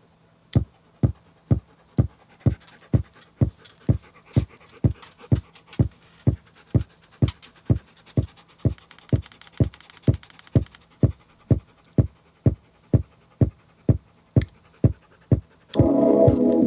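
A steady electronic kick-drum beat from a Teenage Engineering OP-1 synthesizer, about two thumps a second over a low hum. A fast run of high hi-hat ticks comes in briefly about nine seconds in, and loud synth chords enter near the end.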